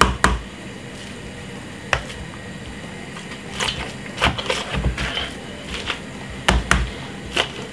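Hand potato masher working boiled potatoes in a plastic bowl on a wooden board: irregular dull knocks and thumps as the masher presses down through the potato and strikes the bowl, with soft squishing between.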